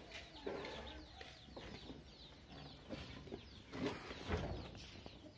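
Chickens clucking and small birds giving many short chirps, with a dull low bump a little after four seconds in.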